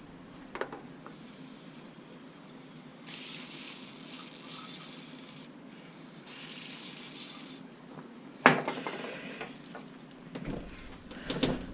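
Three bursts of high hissing, then one sharp metallic knock and a few lighter clinks of tools on steel parts near the end.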